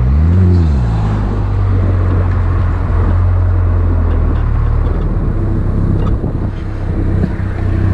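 Engine of an open-cockpit vehicle running at low speed with a steady low drone, tyre and wind noise over it; its pitch rises and falls once in the first second.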